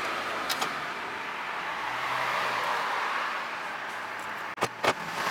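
Sharp clicks of metal exhaust parts being handled at the turbo flange: a light one about half a second in and two close together near the end. Under them runs a steady rushing noise that swells in the middle and fades again.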